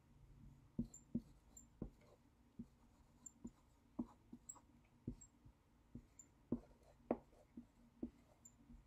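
Dry-erase marker writing on a small whiteboard: a run of faint, short marker strokes, about two a second.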